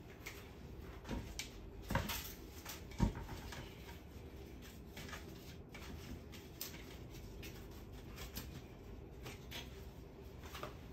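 A few soft knocks and clicks of kitchen utensils against dishes, at about one, two and three seconds in, the last the loudest, followed by faint light handling noise.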